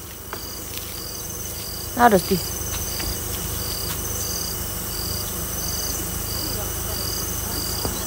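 Insects chirping in a steady rhythm, one high chirp repeating a little under twice a second over a faster high trill. About two seconds in there is one short falling call.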